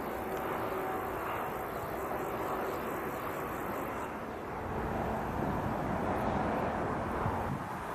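Steady distant vehicle rumble with no distinct event, swelling slightly in the second half.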